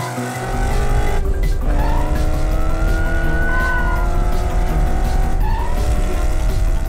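Cartoon race-car sound effects: an engine running hard and tyres squealing, over background music. The heavy engine rumble comes in about half a second in.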